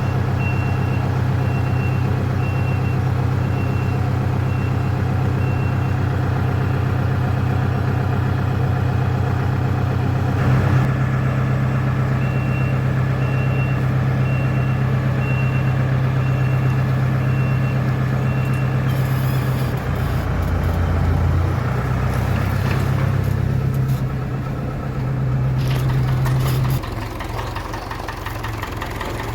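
Diesel engine of a farm machine running under load while a reversing alarm beeps steadily, in two runs of beeps. The engine note changes about two-thirds of the way through and drops near the end.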